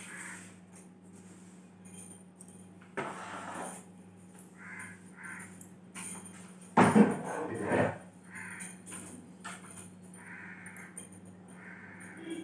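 A long-handled broom swishing and scraping across a ceiling and walls in short strokes, loudest about seven seconds in, over a steady low hum.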